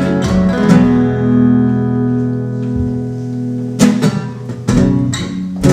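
Acoustic guitar playing an instrumental passage: a few strummed chords, one chord left ringing for about three seconds, then strumming picks up again near the end.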